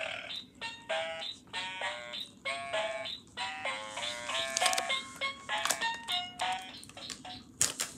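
Electronic children's musical storybook toy playing a synthesized tune of short, stepped beeping notes. A couple of sharp clicks come near the end.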